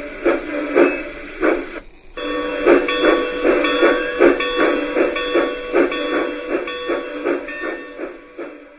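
Sound system of a PIKO G-scale Pennsylvania steam locomotive model playing steady steam chuffs, about three a second, over a hiss, through its onboard speaker. The sound drops out briefly just before two seconds in and cuts off suddenly at the end.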